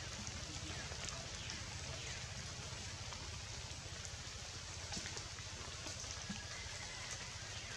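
Steady rain falling through tree foliage, with a few separate drops ticking out above the hiss.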